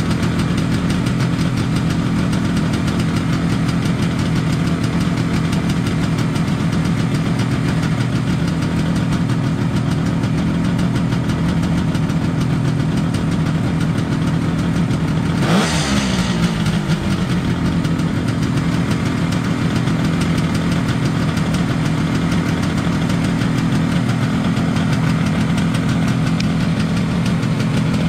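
1973 Kawasaki H1 500's air-cooled three-cylinder two-stroke engine idling steadily, just after a cold start. About halfway through the revs rise sharply for a moment and then fall back to idle.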